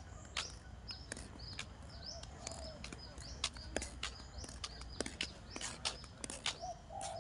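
Footsteps on a paved path, a sharp click every half second or so, with short high bird chirps above a steady low rumble.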